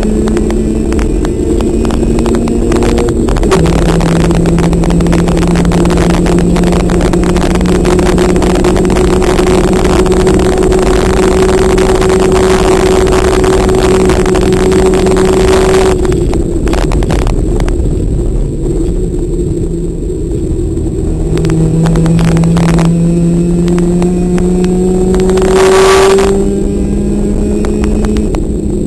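Race car engine pulling hard, heard from inside the car, with the engine note dropping abruptly about three seconds in as at an upshift. It eases off around the middle, then climbs in pitch again under throttle, with a brief louder rush of noise near the end.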